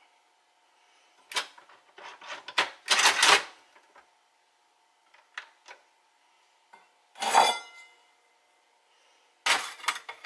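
Metal parts clanking and rattling as they are handled, in four bursts, with a faint steady hum underneath.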